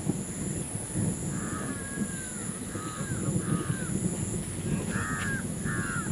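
Crows cawing: a run of harsh caws starting about a second and a half in, then two more near the end, over a low rumbling background and a steady high-pitched drone.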